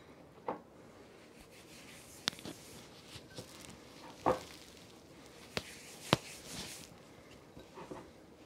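Hands pressing a brown-sugar rub onto browned pork chops, with scattered light taps and clinks against a glass baking dish and small glass bowl; about six short knocks a second or so apart, the sharpest about four and six seconds in.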